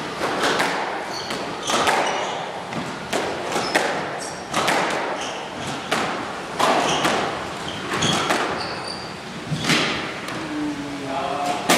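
Squash rally: the hard rubber ball struck by rackets and smacking off the walls, a sharp smack about every second, with sneakers squeaking on the wooden court floor between shots.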